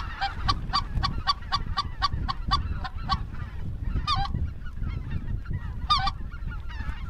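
A large flock of geese honking as it flies overhead: a dense run of calls about four a second, with louder honks about four seconds in and again about six seconds in, over a low rumble.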